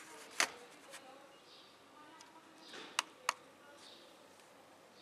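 Light clicks and taps of small objects being handled on a wooden table, one about half a second in and a close pair about three seconds in, as a digital pocket scale is set out and switched on.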